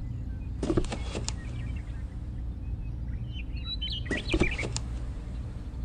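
Light clicks and taps in two short clusters, about a second in and again about four seconds in, as miniature clay-brick wall panels are set down on sand and against one another, over a steady low hum.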